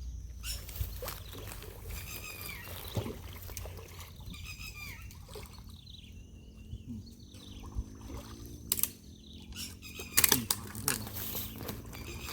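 Water splashing and trickling, with a few sharp knocks around the middle and near the end.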